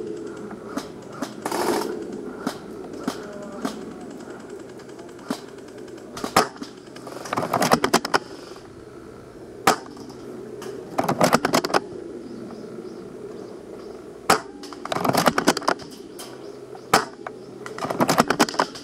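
Airsoft guns firing during a game: several short bursts of rapid automatic fire, with single sharp shots in between.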